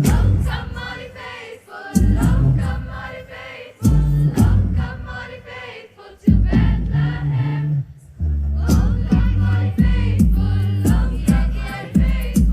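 A girls' school choir singing an upbeat song in phrases of about two seconds, over a deep bass line with sharp percussive beats.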